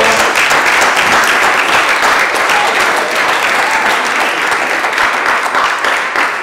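Audience applauding: dense, steady clapping from a roomful of people that tapers slightly near the end.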